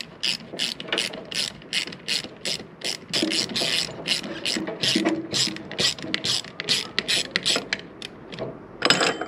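Hand socket ratchet clicking in quick repeated strokes, about three clicks a second, as a bolt on an electrical connector is undone. It ends with a louder cluster of clicks near the end before stopping.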